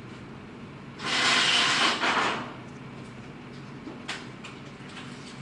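A loud hiss lasting about a second and a half, starting about a second in, over a steady low hum; a few faint clicks follow near the end.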